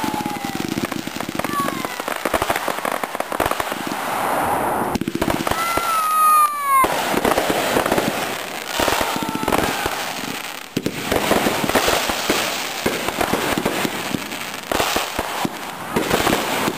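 Consumer 1.4G fireworks going off close by in a dense, continuous barrage of crackling and bangs. A falling whistle sounds about six seconds in.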